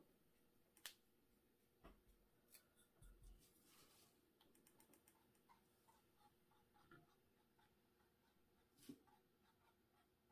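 Near silence, with faint scratching and dabbing of a small paintbrush on a palette and on canvas, and a few faint sharp clicks.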